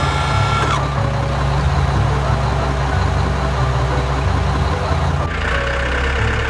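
Heavy vehicle engine running steadily with a deep rumble. A higher hiss joins about five seconds in.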